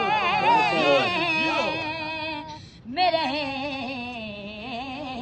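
A boy's high voice singing a naat unaccompanied, in ornamented, wavering lines. He breaks for breath about halfway through, then starts a long held phrase.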